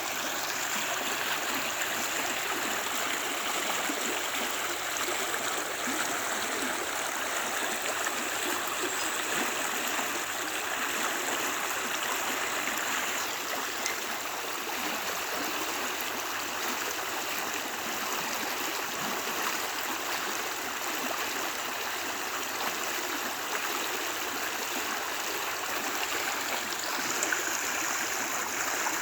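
Creek water flowing over rocks, a steady rushing and gurgling.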